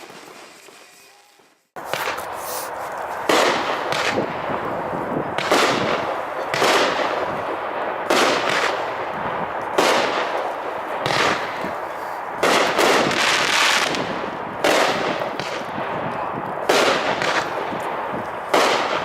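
A 16-shot aerial fireworks cake (Red Apple Fireworks Triumph XL) firing after a short near-silent start: sharp booming shots go off about once a second, with continuous crackling filling the gaps between them.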